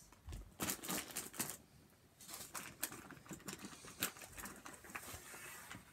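Irregular rustling and crinkling of gift packaging being handled, in short scattered bursts.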